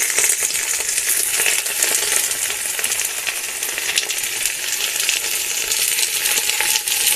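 Raw chicken pieces sizzling in hot oil and fried onions as they go into the pot: a dense, steady hiss, with small clinks of the steel plate and metal against the pot.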